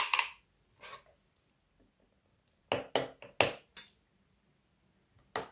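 A spoon packing wet grated vegetable seasoning into a glass jar: a few short scrapes and knocks of metal and glass. There is one at the start, one about a second in, a cluster of them about three seconds in, and one more near the end.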